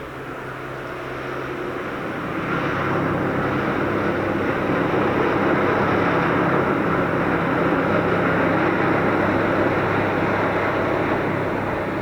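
Car ferry's engines running with a steady low hum over a churning rush of propeller wash, which swells louder from about two seconds in and then holds.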